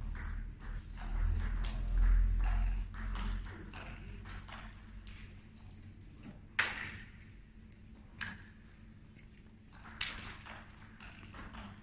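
Sparse, irregular clicks of table tennis balls bouncing in a sports hall, with a few louder single knocks later on. A low rumble runs under the first few seconds.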